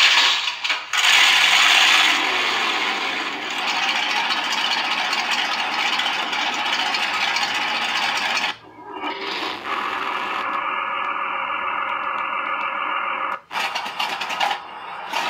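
Recorded tank engine sounds played by an RC tank sound board, running steadily; the sound cuts out briefly about 8.5 seconds in and again about 13.5 seconds in, as the board switches to another tank's engine sound.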